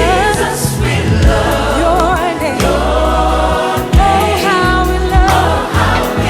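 Gospel worship song sung by a choir and lead voices with a band. The sung melody wavers over a steady bass line, with drum hits scattered through.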